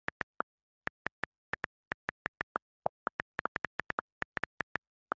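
Smartphone on-screen keyboard key clicks as a text message is typed: about two dozen short, crisp ticks at an uneven typing pace, with one lower-pitched click about three seconds in.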